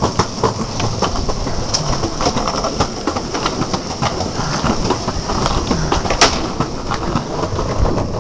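Longboard wheels rolling over asphalt: a steady rumble with frequent short clicks, and a sharper click about six seconds in.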